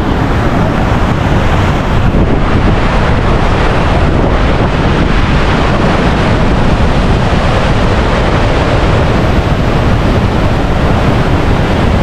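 Niagara River rapids rushing just above the falls: a loud, steady roar of white water.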